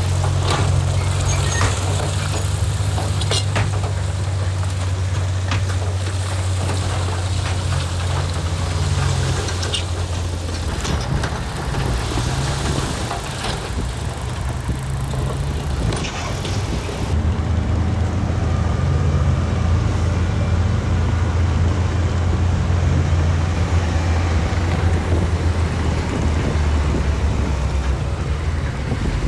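Heavy diesel engine of earthmoving equipment running steadily at a low pitch. Sharp clicks and knocks are scattered through the first ten seconds, and the sound turns rougher around the middle before the steady engine note returns.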